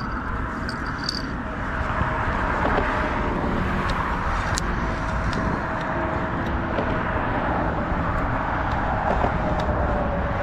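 Steady road traffic on the bridge, cars passing in a continuous rush, with a few faint clicks.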